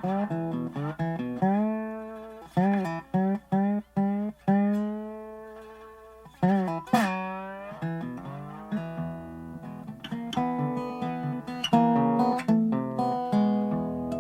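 Background music: a plucked guitar playing single notes and short phrases, many of them sliding or bending in pitch as they ring out.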